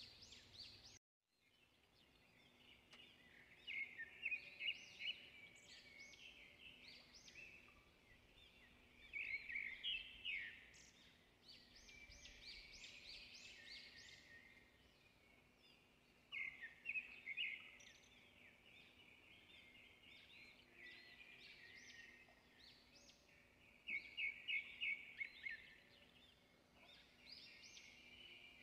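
Faint bird song: quick runs of high chirps about a second long, repeated four times every six or seven seconds, over a low steady hum.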